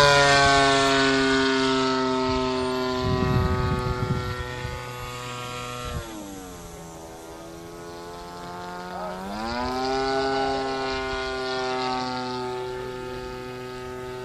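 Engine and propeller of a Hangar 9 Cessna 182 radio-controlled model airplane in flight, loudest at first as it passes. About six seconds in the throttle is pulled back and the engine note drops sharply, then the throttle is opened again about three seconds later and the pitch rises back up. There is a brief low rumble a few seconds in.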